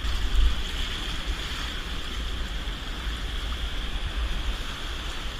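Wind rumbling on the microphone over a steady rushing hiss of moving river water.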